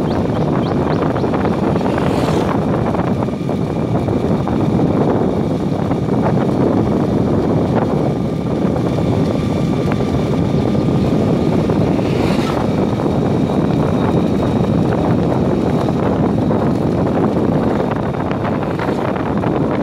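Steady, loud wind noise buffeting the microphone while the camera moves along the road, with a couple of brief gusts.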